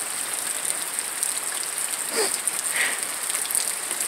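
Rain falling steadily, a dense patter of drops, over a steady high hiss, with a brief faint sound about two seconds in.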